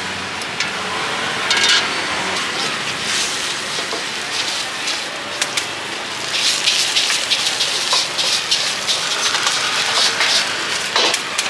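Wok frying over a big gas flame: a steady sizzling rush with quick metal clatters and scrapes of the spatula against the wok, coming thick and fast in the second half.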